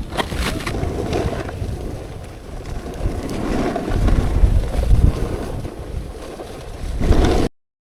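Wind buffeting the microphone over the scrape and hiss of a snowboard sliding on snow, with the heaviest buffeting about four to five seconds in. The sound cuts off abruptly near the end.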